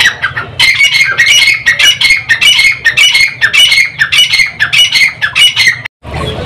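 Grey francolin calling: a rapid run of loud, high-pitched repeated notes, about four a second, that stops abruptly near the end.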